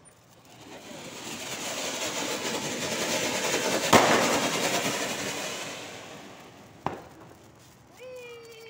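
Ground fountain firework spraying sparks with a rushing hiss that swells over a few seconds and then fades. A sharp crack sounds at the loudest point, and a second, smaller pop comes about three seconds later.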